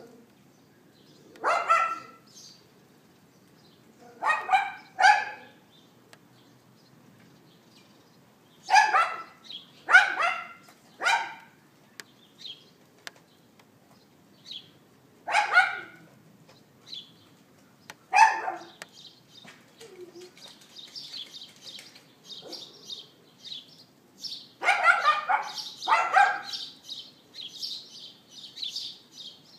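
A small dog yapping: about ten short, sharp barks, singly and in quick twos and threes, with pauses of a few seconds between the groups.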